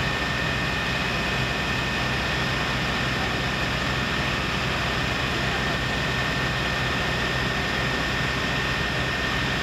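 Mercedes-Benz Atego fire engine's diesel engine running steadily at idle, with a steady high whine over its low hum.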